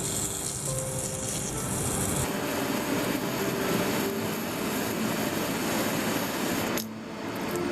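Water spraying out in a hiss that cuts off abruptly about two seconds in, followed by a few seconds of rough rubbing and scrubbing as the detergent and spilled oil are cleaned up.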